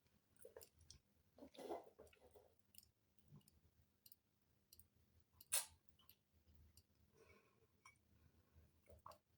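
Near silence broken by faint clicks and small mouth sounds of a person taking a spoonful of cough syrup, with one sharper click about five and a half seconds in.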